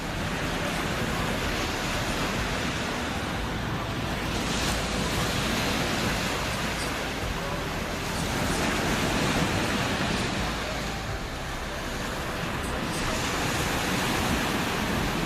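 Ocean surf breaking and washing up the beach: a steady rushing that swells several times as waves come in.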